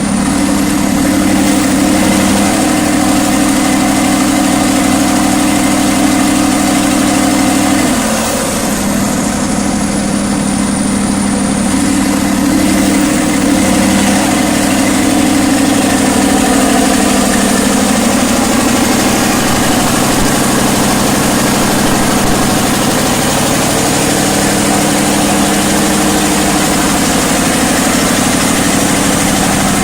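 500 kVA FG Wilson diesel generator running steadily, a loud even engine drone that dips briefly about eight seconds in.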